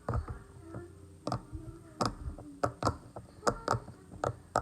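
Round silicone Pop It fidget toy being pressed bubble by bubble: a string of sharp, irregularly spaced pops, roughly two or three a second.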